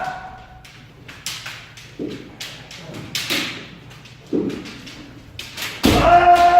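Kendo sparring in a reverberant hall: scattered sharp clacks and knocks of bamboo shinai and footwork, then a long, loud kiai shout starting near the end.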